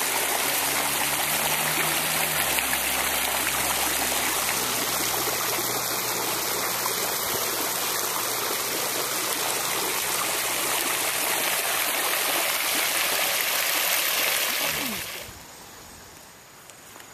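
Garden fountain's ring of water jets splashing into its pool, a steady rush of falling water that stops abruptly near the end.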